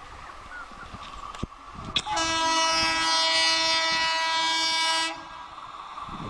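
WAP-4 electric locomotive horn sounding one long blast of about three seconds, starting about two seconds in, over the low running noise of the approaching express train.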